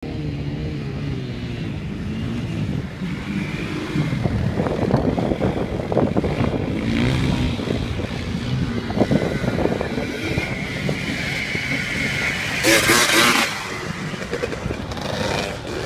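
Suzuki LTZ400 quad's single-cylinder four-stroke engine revving up and down as it slides around a dirt corner. About 13 s in, a small dirt bike passes close, with a short, loud rush of noise.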